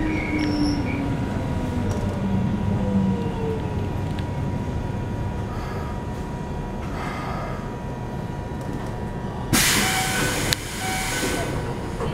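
Keikyu 1500 series field-chopper-controlled electric train heard from inside the car as it brakes into a station: the motor and gear whine falls in pitch over the first few seconds, under a steady hum. About nine and a half seconds in comes a sudden loud hiss of air lasting about a second, then a quieter hiss.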